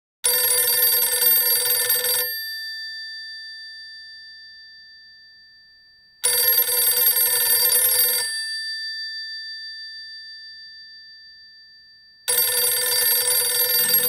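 Telephone bell ringing three times. Each ring lasts about two seconds, with about four seconds between rings. After each ring the bell's tone fades slowly away.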